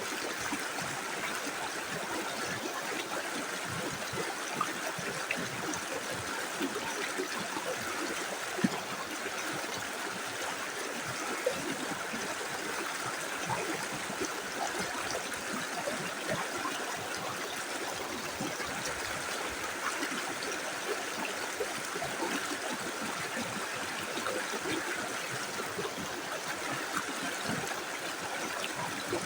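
Small river flowing steadily over stones, an even rushing with many small splashes and gurgles, and one sharper splash about eight and a half seconds in.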